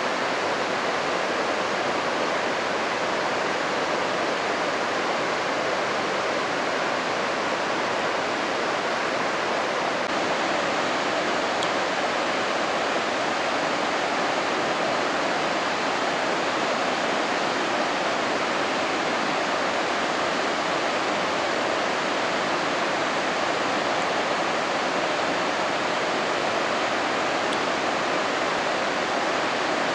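The Rhine Falls pouring: a steady, unbroken rush of falling water.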